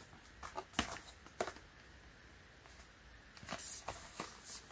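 Faint taps and scuffs of hands handling and turning a cardboard box: a few single taps in the first second and a half, then a short run of rustling handling noise near the end.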